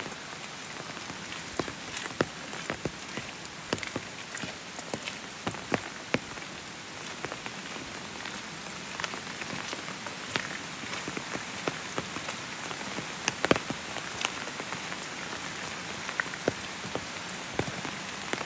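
Steady rain: an even hiss with irregular close drops tapping several times a second, one louder tap about 13 seconds in.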